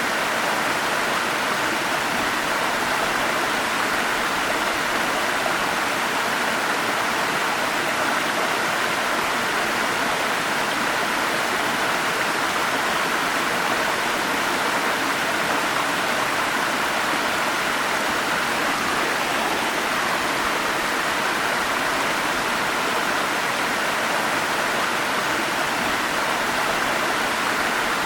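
Forest stream flowing steadily: an even, unbroken water noise with no separate splashes or pauses.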